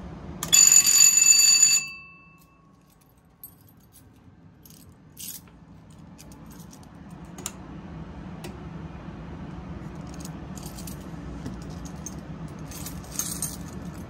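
Fire alarm horns sounding loudly on continuous for a little over a second, then cutting off suddenly as the control panel is reset. Afterwards a low hum slowly rises, with faint clicks and jingles of keys.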